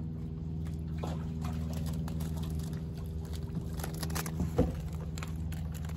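Wet rope hauled hand over hand from the water, with water dripping and splashing as a wire crab pot is pulled up toward the surface. A steady low motor hum runs underneath.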